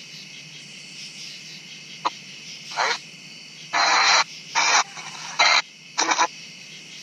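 Smartphone ghost box app playing through the phone's speaker as it sweeps the FM band. It gives a series of short, choppy bursts of static and clipped radio fragments from about two seconds in, over a steady hiss.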